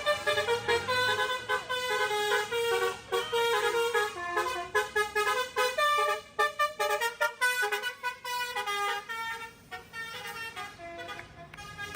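Indonesian bus 'telolet' horn playing a rapid tune of short notes that step up and down, several tones sounding together. It grows quieter for the last couple of seconds.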